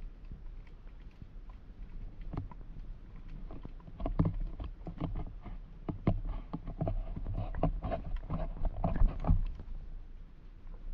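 Muffled underwater noise picked up by a submerged GoPro in its housing: irregular clicks and knocks over a low rumble, thickest from about four seconds in until near the end.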